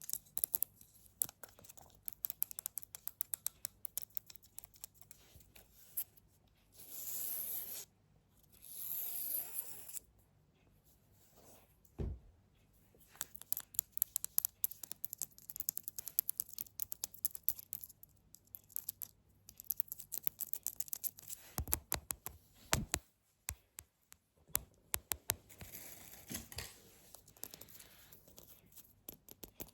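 Close-up fingertip tapping and knocking near the microphone: fast, uneven clicks, with two longer scratchy sounds about seven and nine seconds in, and a few low thumps.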